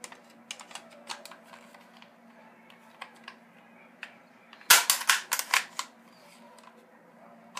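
Daisy Powerline 340 BB pistol's slide and frame clicking and scraping as the slide is fitted back on. About two-thirds of the way in comes a quick run of loud, sharp clacks as the slide is pushed home on the frame.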